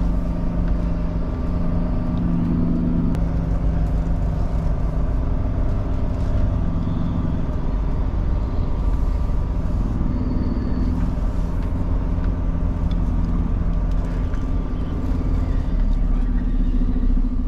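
Semi truck's diesel engine running at low speed while the tractor-trailer is maneuvered into a parking spot to drop the trailer, its pitch shifting a little as it goes.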